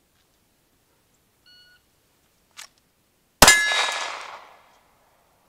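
A shot timer gives a short start beep, and about two seconds later a Glock 19X 9mm pistol fires a single loud shot whose ringing tail fades over about a second. A faint click comes shortly before the shot.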